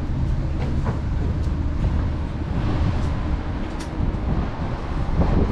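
Steady low rumble of a ferry's engines and machinery, with a few faint clicks.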